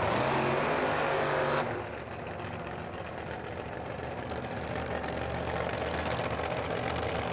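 Drag race car engine running loud, dropping off sharply about a second and a half in, then running steadily at a lower level.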